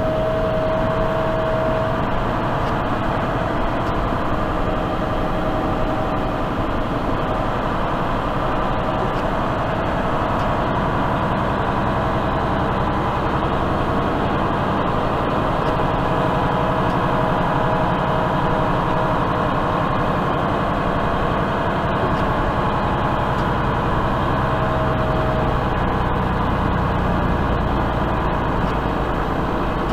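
Semi truck's diesel engine running, heard from inside the cab as the truck moves slowly: a steady low drone with faint whining tones that fade in and out.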